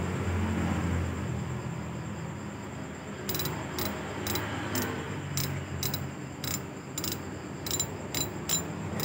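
A spinning fishing reel being worked by hand: a low whirr of handling at first, then a run of sharp, irregular metallic clicks, roughly two a second, from about three seconds in.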